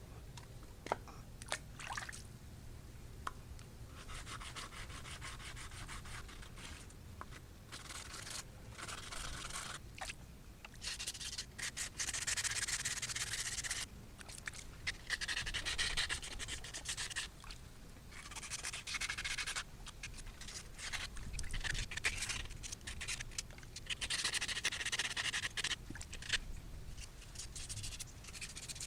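Soaked 100- and 120-grit sandpaper rubbed back and forth over a painted bike part, wet-sanding off the paint left after scraping. The rasping comes in runs of a second or two with short pauses and is loudest near the middle and again toward the end.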